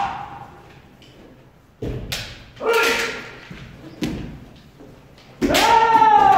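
Kendo practice: sharp thuds of stamping footwork and bamboo sword strikes, with kiai shouts. A thud comes about two seconds in, then a short shout and another thud, and near the end a long, loud shout with a slightly falling pitch.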